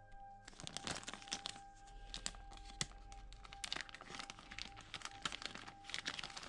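Clear plastic bag crinkling and rustling as a dyed-green rooster cape is handled inside it. The crinkling starts about half a second in and goes on in quick crackles.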